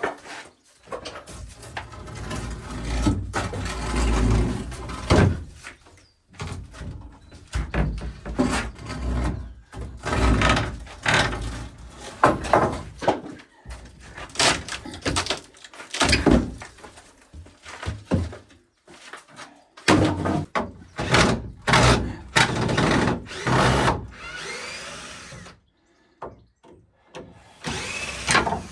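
Irregular knocking and clattering of wooden boards and tools being handled during building work, with short pauses in between.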